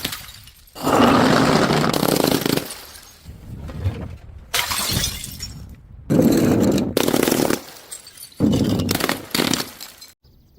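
Glass bottles smashing, about four separate breaks, each a sudden crash followed by a second or so of tinkling shards.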